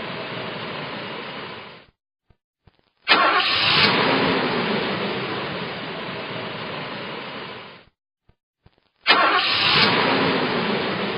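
A car engine is started twice. Each time a couple of faint clicks come first, then the engine catches with a sudden loud burst and settles into a steady idle that slowly fades. At the start an earlier idle fades out into silence.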